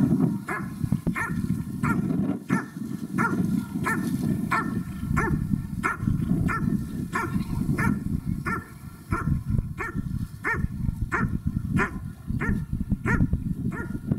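German Shepherd Dog barking steadily and rhythmically at the protection helper, about one and a half barks a second, keeping up a continuous hold-and-bark.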